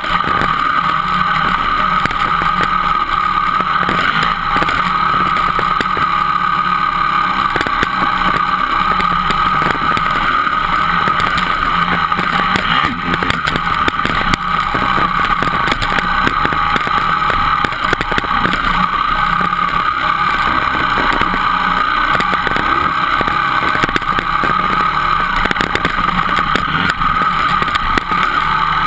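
Dirt bike engine running at a fairly steady, even speed while riding a dirt trail, heard from on the bike itself so the engine note dominates.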